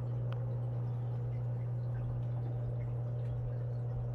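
Aquarium filtration running: a steady low hum with faint trickling water and a few soft drips, from the tank's two Fluval FX6 canister filters and AquaClear 110 hang-on-back filter.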